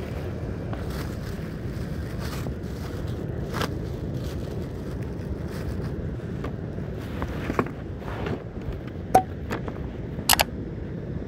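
Steady low rush of beach wind and surf on the microphone, with a clear plastic bag crinkling as bait is handled. Near the end, a couple of sharp knocks as a knife meets a plastic cutting board.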